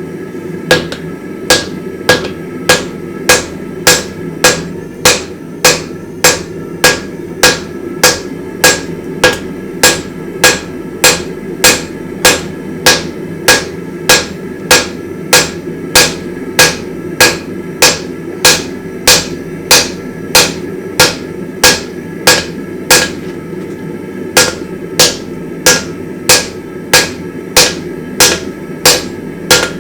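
Steady, evenly paced hammer blows on hot steel at an anvil, about one and a half strikes a second, each with a short metallic ring, drawing out a damascus billet. A steady low hum runs underneath.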